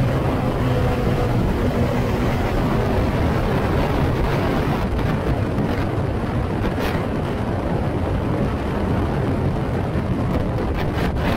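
Wind howling and buffeting over the onboard microphone of a Formula Ford racing car at speed, with the engine's note underneath and partly drowned by the wind.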